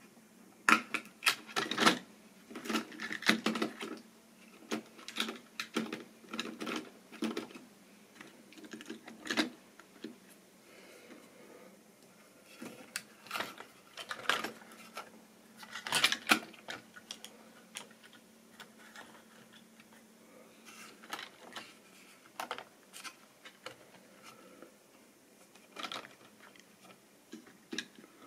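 Irregular clicks and clatter of model railway wagons being handled by hand on the track: couplings, wheels and plastic bodies knocking together in uneven bursts, busiest in the first ten seconds. A faint steady hum runs for several seconds in the middle.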